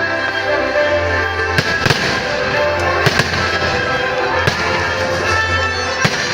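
Fireworks bursting in the air, about five sharp bangs spread over a few seconds, over loud show music with a steady bass.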